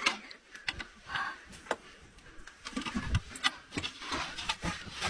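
Irregular sharp knocks and clicks, several a second at times, with a few short lower sounds in between.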